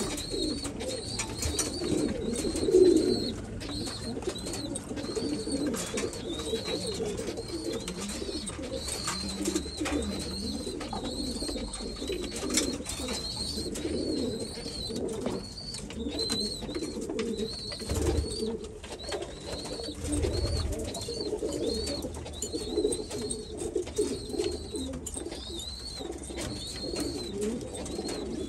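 Domestic pigeons cooing in a continuous low, warbling murmur. A short high chirp repeats about one and a half times a second over it.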